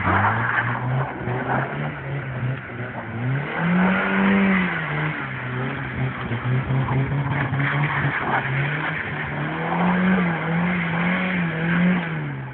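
Ford Scorpio estate's engine revving up and down over and over as the car slides through turns on snow, its pitch climbing highest about four seconds in and again near the end. A rough hiss of wheels spinning in the snow runs under it.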